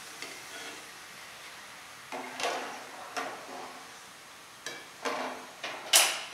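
A metal ladle knocking and clinking against the rim of a steel wok as fried cassava bhajia are lifted out of the hot oil. There are several sharp clatters over a faint steady hiss, the loudest about six seconds in.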